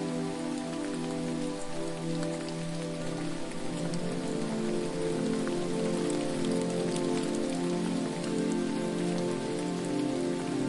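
Steady rush and spatter of water falling and splashing at a waterfall, full of fine droplet ticks. Underneath runs a low hum of several layered tones that shift every half second or so.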